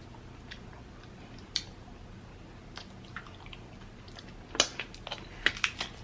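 Crab legs being eaten: quiet wet chewing and mouth smacks, with scattered sharp clicks that come more often in the last second and a half.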